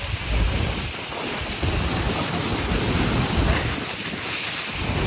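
Steady roar of rushing falling water with wind gusting on the microphone.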